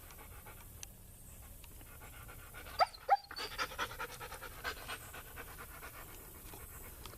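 A dog panting fast, with two short rising whines about three seconds in, while it is kept back from a deer it has spotted.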